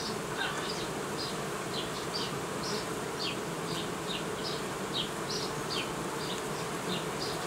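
Honeybees humming steadily around an open hive as a brood frame crowded with bees is lifted out.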